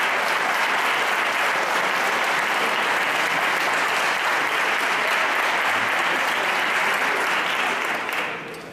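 Crowd applauding steadily with dense hand clapping, dying away near the end.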